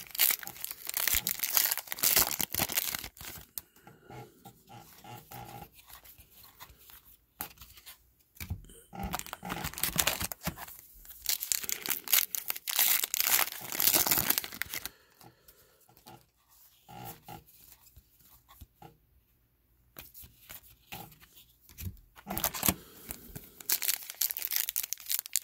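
Foil trading card pack wrappers being torn open and crinkled by hand, in three spells of crackling with quieter stretches between them.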